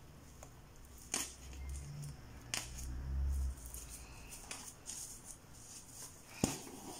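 Hand-sewing hair wefts onto a wig cap with a curved needle and thread: soft rustling and a few sharp clicks as the needle and thread are worked through the cap, the loudest click near the end. A low rumble of hands rubbing near the microphone sits in the first half.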